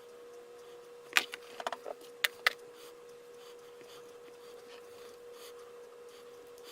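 Small hard clicks and taps, about six in a second and a half, from parts of an Xbox 360 controller being handled during cleaning, over a steady hum.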